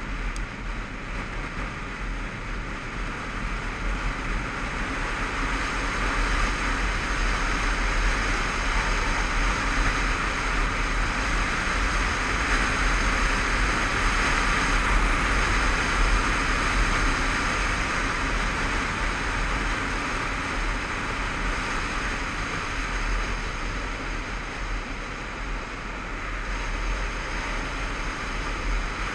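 Motorcycle riding along a road: a steady rush of wind over the microphone with the engine running underneath. It swells through the middle and eases off near the end.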